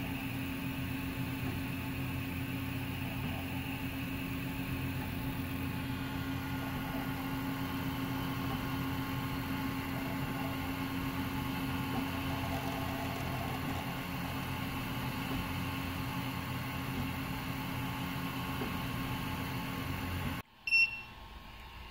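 Prusa i3 MK2S 3D printer running a print: the steady hum of its fans and motors, with a low tone throughout. The hum cuts off suddenly near the end, then a short high beep.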